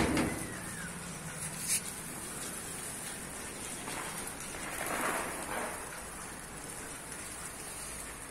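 A swarm of locusts: a steady rustling of many wings and bodies, swelling briefly about five seconds in. A sharp knock right at the start and a smaller one just before the two-second mark.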